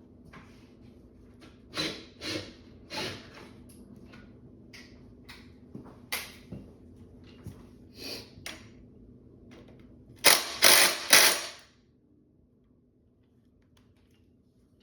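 A 1955 Evinrude 15 hp Fast Twin two-stroke outboard is being pull-started in a series of short cranking bursts, with three louder ones in quick succession about ten seconds in. It does not keep running: with no fuel pump fitted it gets only starting fluid.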